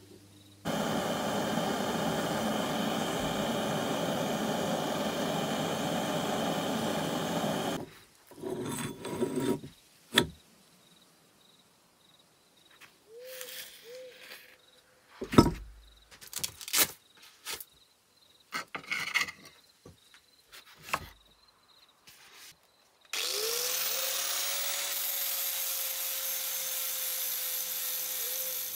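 Rotary power tool abrading the rusty metal of the wrench in two long steady runs, with scattered knocks and taps between them; the second run opens with the motor spinning up.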